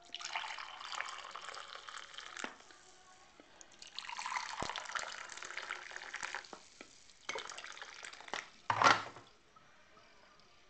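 Coffee being poured into ceramic mugs: a splashing pour for about two and a half seconds, a second pour from about four seconds in, and a short third pour. A brief, louder bump comes near the end.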